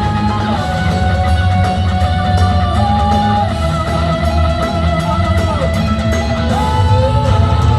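Loud live hard rock band playing: drums and bass under a lead electric guitar that holds long notes and slides between pitches.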